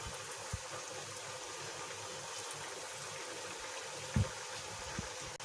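Oil sizzling and bubbling steadily in a kadhai as raw banana kebabs deep-fry, with a few dull low thumps, the loudest about four seconds in.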